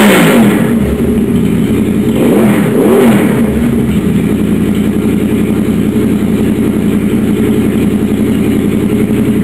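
Honda VFR800 VTEC V4 engine running with no exhaust fitted, open headers. A rev falls away at the start, the throttle is blipped twice in quick succession, then the engine settles into a steady, loud idle.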